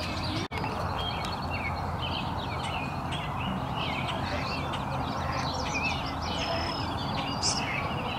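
Wood duck ducklings peeping: a continuous run of short, high chirps over a steady low background rumble. The sound cuts out for an instant about half a second in.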